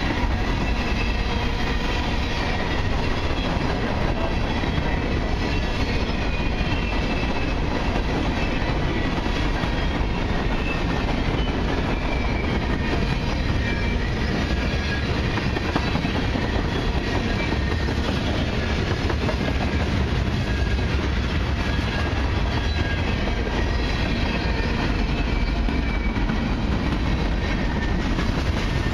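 Freight cars of a long train rolling past close by: a steady, unbroken noise of steel wheels on rail, with faint high tones held over it.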